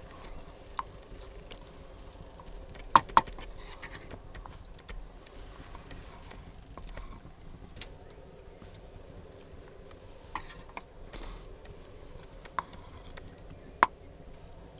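Wooden spoon stirring thick mashed potatoes with pork in a black metal pot, with a few scattered sharp clicks, the loudest a quick pair about three seconds in.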